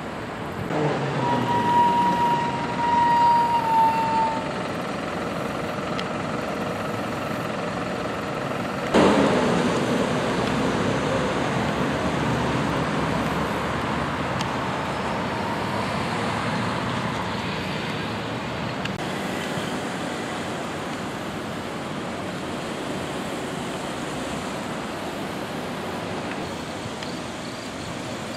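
Road traffic at an intersection: vehicles drive past, and one passes close with a sudden loud rush about nine seconds in that slowly fades away. A steady high tone sounds for about three seconds near the start.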